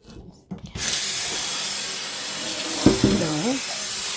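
A few light knocks, then a kitchen faucet opens about a second in and water runs steadily into a slow-cooker crock as it is rinsed out in a stainless steel sink.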